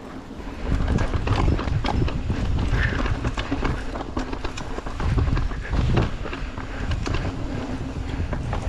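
Mountain bike riding fast down a rough dirt and rock trail: a steady low rumble of tyres on the ground, with frequent irregular clattering knocks as the bike rattles over rocks and bumps.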